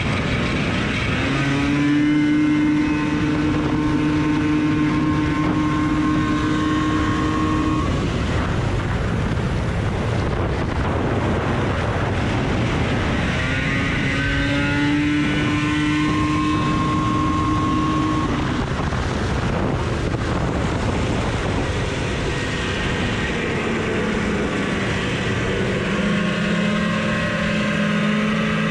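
A vintage Rupp Nitro snowmobile's two-stroke engine racing, heard from on board. The engine holds a steady high pitch on two stretches, goes rougher between them, and settles to a lower pitch near the end as the sled slows.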